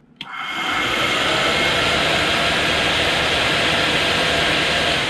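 Diesel heater combustion-air blower motor spinning up within about a second, running steadily with a rushing whine, then starting to wind down near the end. The noisy, dry-sounding motor bearing has just been oiled through the intake, and it still doesn't sound great.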